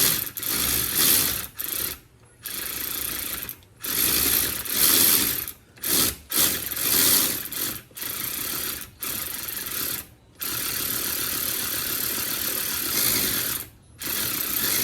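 Ratchet wrench undoing an intake manifold bolt, ratcheting in short strokes with brief pauses between them, then a steadier run of about three seconds a little after ten seconds in.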